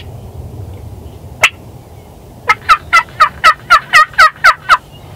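Turkey call sounding a lonesome-hen yelp sequence: one yelp, then a quick run of about ten loud yelps, roughly four a second, each falling in pitch.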